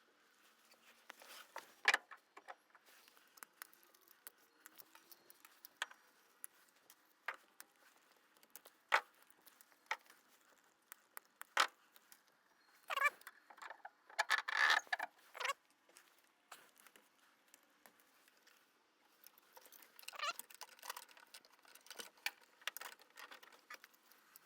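Scattered light clicks and knocks, with two spells of quick rattling about 13 and 20 seconds in.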